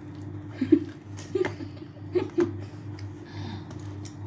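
A few short chuckles over a steady low hum.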